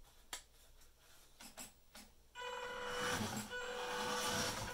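Electric motor and gearbox of a 1/10-scale WPL D-42 RC van, a steady whine that starts a little over two seconds in as the van drives off, after a few faint clicks.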